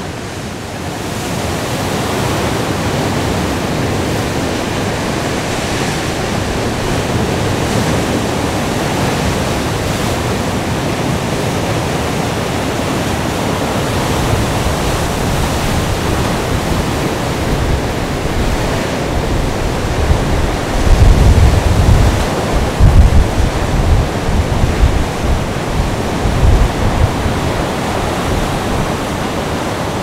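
Rough sea surf and wind, a loud steady rush of breaking water. From about twenty seconds in, heavy low gusts of wind buffet the microphone.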